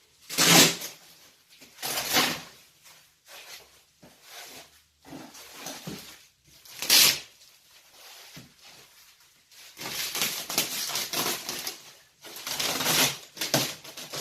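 Outer packaging being torn and pulled off a large shipping box. There are sharp scratchy tearing sounds about half a second in, at two seconds and at seven seconds, then a longer stretch of crinkling and rustling near the end.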